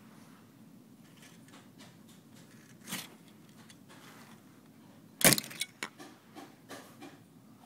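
Short clicks and rattles: one sharp knock about three seconds in, then a quick cluster of clattering clicks just after five seconds, the loudest sound, trailing off into a few fainter clicks.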